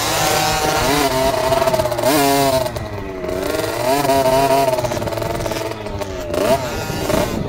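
Small 50cc two-stroke kids' auto motocross bike engine revving up and down as it rides along a dirt track, its pitch rising and falling repeatedly.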